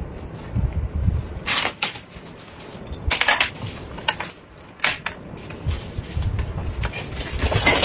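Plates and dishes being handled and set down on a table: several short clatters and knocks, a second or two apart.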